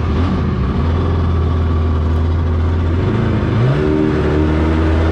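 Mini jet boat's small gasoline engine running steadily under way, with a brief dip and a quick rise in pitch about three and a half seconds in.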